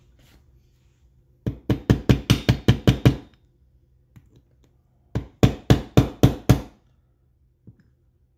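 Small hammer tapping rapidly on the steel Bendix drive of a ratcheting starter, in two runs of about six knocks a second, driving a spring-loaded plunger into its seat in the drive.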